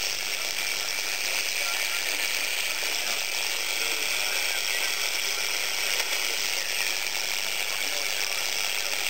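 Steady hiss of band noise from a homebrew three-transistor direct-conversion HF receiver's audio output, boosted by an LM386 amplifier, with no station tuned in.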